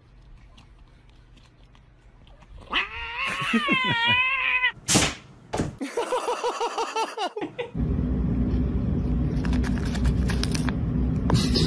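A domestic cat lets out a long, wavering yowl about three seconds in, followed by a sharp click and a quick run of rapid stuttering cat calls. A steady low background noise fills the last few seconds.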